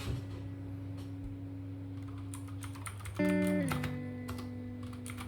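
Typing on a Keychron K4 keyboard, with rapid key clicks starting about halfway through. Guitar-led background music plays underneath.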